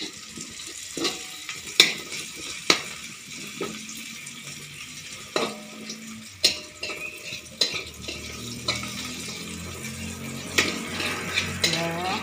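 Sliced garlic, shallots and chillies sizzling in oil in a wok, with a metal spatula scraping and knocking against the wok every second or so as they are stir-fried.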